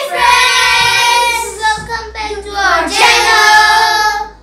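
Several children calling out together in long, drawn-out, sing-song voices, a chorus that breaks up briefly before a second held call about three seconds in.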